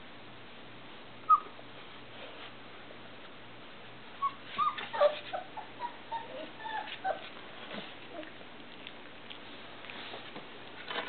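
Three-and-a-half-week-old Irish Setter puppies whimpering. One sharp high yelp comes about a second in, then a run of short whines and squeaks from about four to seven seconds in, as the puppies try to climb out of their whelping box.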